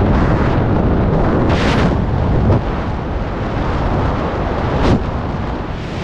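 Freefall wind rushing over the camera microphone, loud and continuous, with brief sharper gusts about two seconds in and again about five seconds in.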